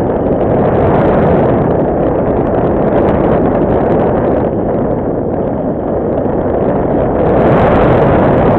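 Wind rushing over the microphone of an onboard camera on a Radian Pro RC glider in flight: a loud, steady rushing noise.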